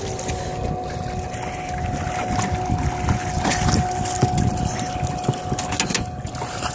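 Wind buffeting the microphone and choppy lake water slapping against a small boat, with a steady high hum underneath.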